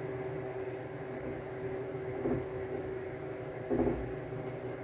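A steady low electrical hum, with two faint short sounds, one about two seconds in and one just before four seconds.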